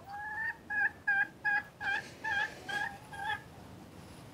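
A chicken calling: a run of about ten short pitched calls, roughly three a second, the first one drawn out and rising.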